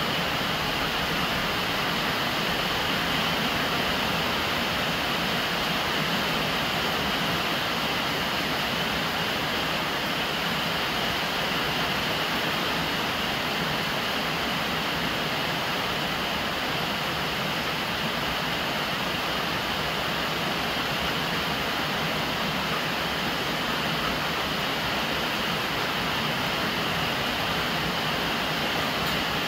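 Steady rain, with rainwater pouring from a plastic downpipe onto the lid of a large water jar and splashing over its sides, a constant even rush of water.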